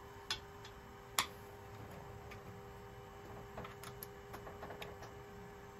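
Sharp clicks and small ticks from hands working the spindle mount of a CNC router during tramming: two crisp clicks within the first second and a half, then a run of light ticks and taps from about three and a half to five seconds in. A faint steady hum runs underneath.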